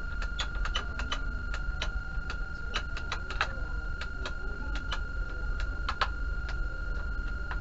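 Irregular sharp clicks and taps of tools and small parts being handled during hands-on electronics repair work. They come in uneven clusters over a steady high-pitched electronic whine and a low hum.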